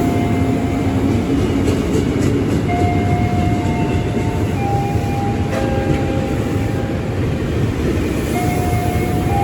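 A train running through the station with a loud, steady rumble. Several steady high tones sound over it, changing pitch every second or two, and there are a couple of sharp clicks.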